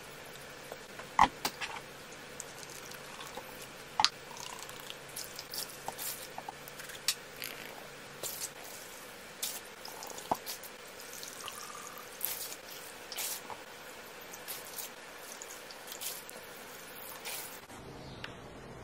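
Cleaning liquid poured from a plastic bottle into a measuring cup and tipped into a tub of water, with many scattered sharp drips and small pops.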